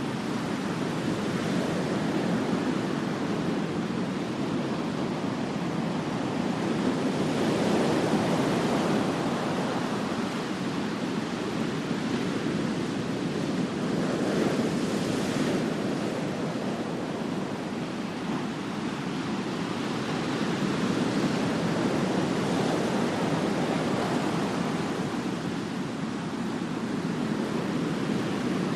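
Ocean surf on a beach: a continuous wash of waves, swelling as a wave breaks about every six or seven seconds and easing between them.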